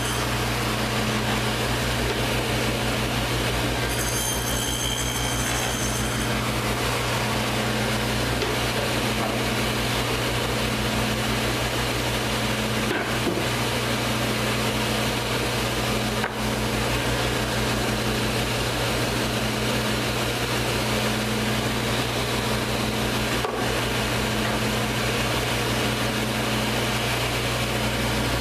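Table saw running steadily with its motor humming while boards are fed through the blade, cutting drawer lock joints in drawer parts. A high whine joins in about four seconds in and fades out by six.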